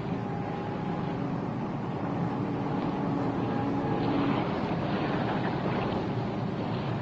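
Steady rush of a boat running on choppy harbour water: engine and water wash blended into an even noise.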